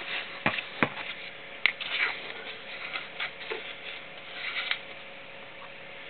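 Small metal tools and parts clicking and scraping against a diesel cylinder head as sealing paste is worked into a valve seat bore and a rod is set in the valve guide: three sharp clicks in the first two seconds, then lighter scraping and tapping that dies away near the end.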